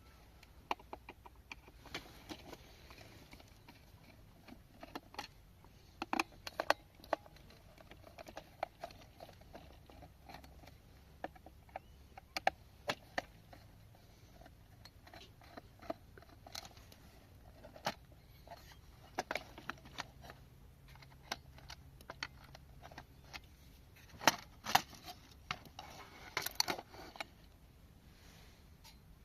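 An old alarm clock being handled and opened: irregular small clicks, taps and scrapes of metal and plastic parts, with louder clusters of clicks in the middle and near the end.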